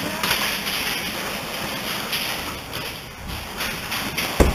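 Steady rushing noise on the helmet camera's microphone, with one heavy thump near the end.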